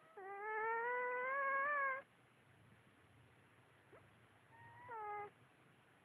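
Domestic cat giving two drawn-out meows: the first long and rising slightly, the second shorter and dropping in pitch at its end, a few seconds later.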